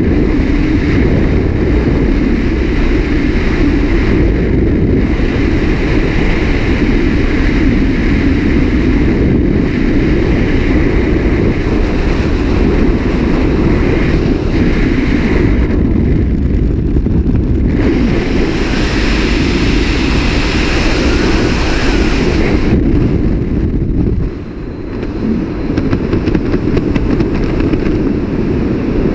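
Loud, steady rush of freefall wind buffeting a helmet-mounted camera's microphone, dipping briefly about twenty-four seconds in.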